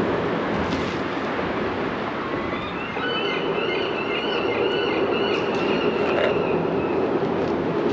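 Steady rumble of traffic and engines, with a wavering high-pitched squeal that starts about two and a half seconds in and lasts around four seconds.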